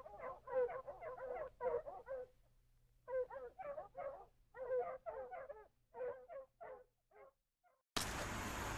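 A dog yipping and whining in quick, short, repeated calls. There is a brief pause about two and a half seconds in, and the calls thin out toward the end. Near the end the sound cuts abruptly to a steady rushing noise.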